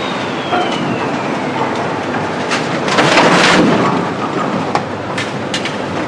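Scrapyard machinery noise: a dense, rough din with metallic clanks and a few sharp clicks, louder for about a second around the middle, and a thin whine falling in pitch during the first second.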